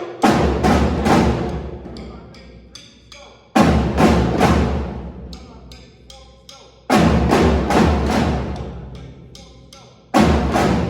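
Background music built on heavy drum hits: a loud strike about every three seconds, each followed by a few quick hits that fade away, with lighter ticking percussion between.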